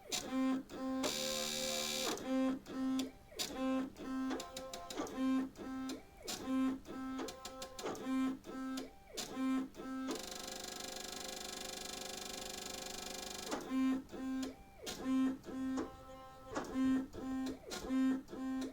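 Stepper motors of a small desktop CNC machine whining in short pitched bursts, mostly in quick pairs with brief pauses between, as it runs a solder paste dot-dispensing program without paste. About ten seconds in comes one longer, steady whine lasting about three and a half seconds, a longer move, before the paired bursts resume.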